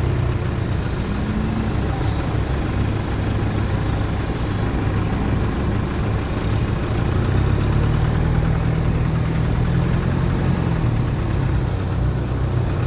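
Motor vehicle engine running steadily, its low hum swelling for a few seconds past the middle before settling back.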